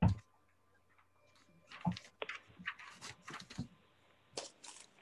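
A thump, then scattered short rustles and clicks: pages of a Bible being turned, heard through video-call audio.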